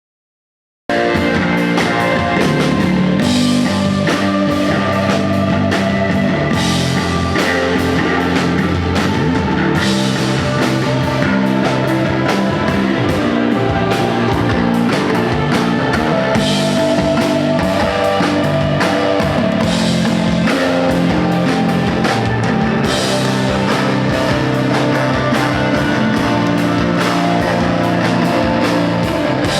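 Live rock band playing loud: electric guitar over a drum kit and bass, in a dense, steady groove. The music cuts in abruptly about a second in, after a moment of silence.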